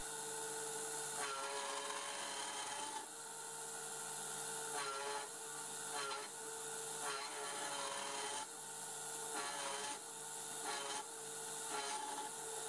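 Faint sound of a MaxNC CNC mini-mill's end mill cutting into metal plate: a steady grating with a held tone, breaking off and starting again every second or two.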